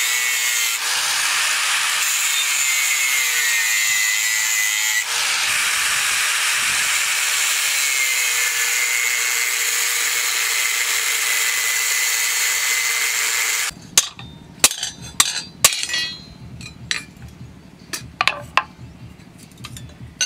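Electric angle grinder with a thin cut-off disc cutting through steel plate, a loud, steady grinding whine with two brief dips. It stops abruptly about two-thirds of the way in, and a series of sharp metal clinks and knocks follows.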